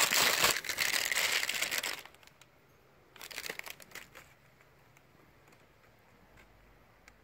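Plastic packing wrap crinkling as it is pulled out from between the pistons of a new brake caliper. It rustles for about two seconds, then again more briefly about three seconds in.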